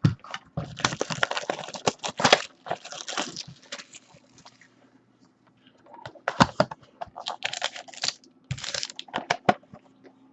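A sealed trading-card box being opened by hand: rapid crinkling, crackling and tearing of its wrapper and cardboard. The noises come in two spells, the first about half a second in, the second from about six seconds until near the end.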